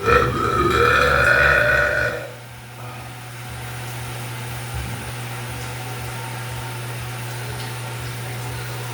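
A person burping: one long, loud burp of about two seconds with a wavering pitch, then a steady low hum.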